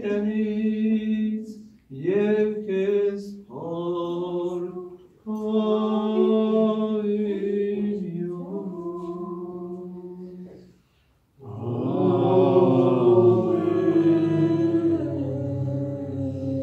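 Unaccompanied male voice chanting an Armenian church hymn in slow phrases with long held notes and short breaths between them. From about eleven seconds in the sound grows fuller and louder as lower voices join.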